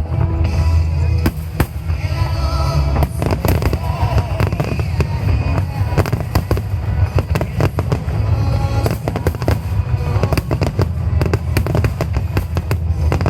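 Aerial fireworks bursting in rapid, dense succession: many sharp bangs and crackles over a continuous low rumble.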